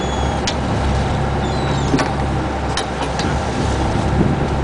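Fishing boat's engine running with a steady low drone. A few sharp clicks and a brief high falling squeak sound over it.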